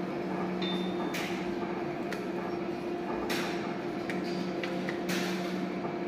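Video slot machine spinning game after game: three short, sharp noises about two seconds apart as spins start, with a few fainter clicks, over a steady low hum.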